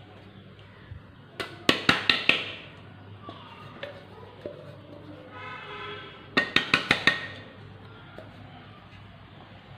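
A steel mixer-grinder jar being knocked to shake out ground bread crumbs over a plastic bowl: two quick runs of about five sharp taps each, the first about a second and a half in, the second about six and a half seconds in.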